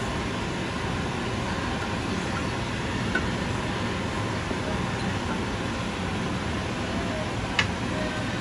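Wooden spatula stirring coconut-milk curry in a steel pot, with a few light taps and one sharper knock against the pot near the end, over a steady machine hum and rush.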